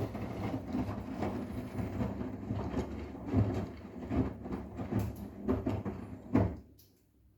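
Arçelik 10121 washing machine drum turning and tumbling a sofa cover, with irregular thumps, then stopping abruptly near the end as the drum pauses.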